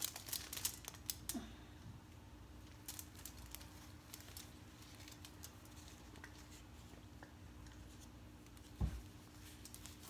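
Light crinkling and rustling of plastic and gauze wound-dressing supplies being handled, with a string of small crackles in the first second or so. After that it is mostly quiet over a faint steady hum, with one soft thump near the end.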